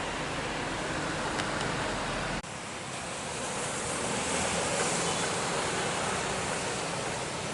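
Jet airliner engine noise, a steady broad rush with no clear tones. There is an abrupt cut about two and a half seconds in, after which a high hiss swells and fades.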